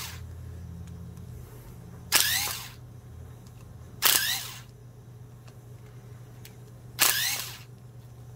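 Makita cordless screwdriver running in three short bursts, each a rising whine about half a second long, backing screws out of a drill's gearbox housing. A low steady hum sits underneath.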